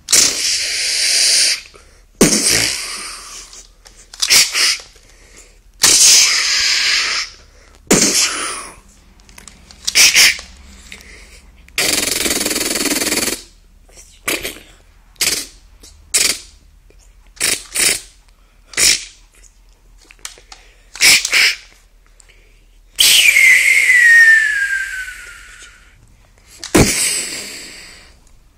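A person imitating handgun shots for sound effects: a series of about sixteen separate noisy, hissing bursts, some short and some drawn out, with pauses between. About 23 seconds in, one burst carries a long falling whistle, like a bullet ricochet.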